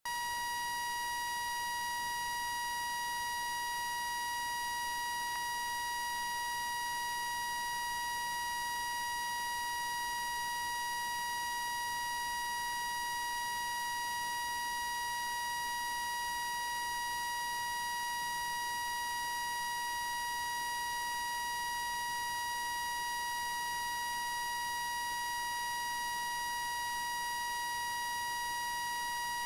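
Continuous electronic beep: one steady, unbroken tone with a buzzy edge that never pauses or changes pitch.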